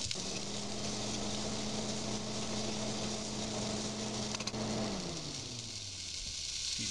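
An electric appliance motor hums steadily, then slows and drops in pitch about five seconds in as it winds down. A faint hiss of vegetables frying in the pan runs underneath.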